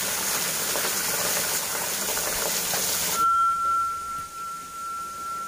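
A thin stream of water falling from a rock face and splashing onto stones, giving a steady hiss. It cuts off about three seconds in, leaving a quieter scene with a single steady high tone.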